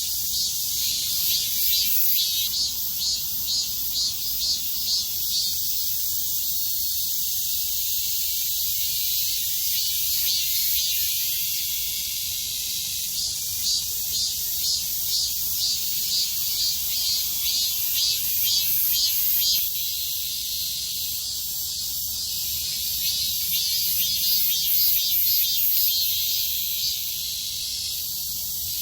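Cicadas singing in a summer chorus: a loud, continuous high-pitched buzz that at times breaks into fast rhythmic pulsing and at times runs smooth and steady.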